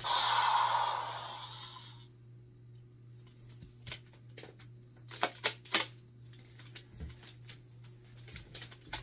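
A toy Kamen Rider blaster's electronic sound effect fading out over the first two seconds, then a scattering of sharp plastic clicks and clacks from the toy being handled, with a quick cluster of the loudest ones a little past the middle.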